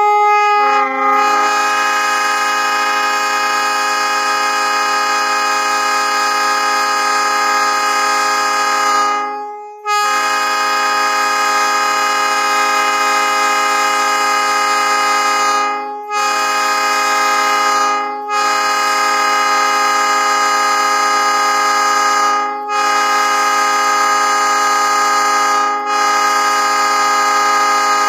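Nathan Airchime P3 three-chime train horn sounding its chord in long, sustained blasts broken by brief gaps. It opens with a lone note for about a second before the other chimes join in.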